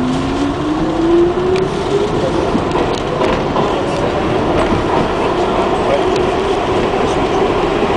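Bombardier R62A subway car accelerating away from a station, heard from inside the car. Its motor whine rises in pitch over the first couple of seconds, over a steady rumble of wheels on the track and scattered clicks from the rail joints.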